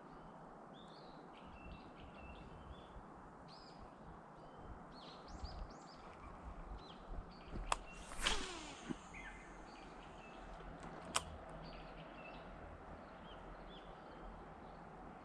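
Small birds chirping repeatedly over a steady outdoor background hiss. About halfway through comes a sharp click followed by a loud brief swish that falls in pitch, and a second sharp click about three seconds later.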